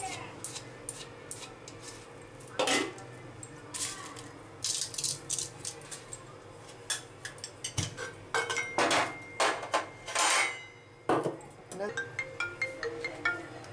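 Hands mixing fish pieces with spices in a stainless-steel bowl: bangles clink against each other and the bowl in quick, irregular clicks, some with a short metallic ring, and the bowl scrapes loudly a few times as the fish is tossed.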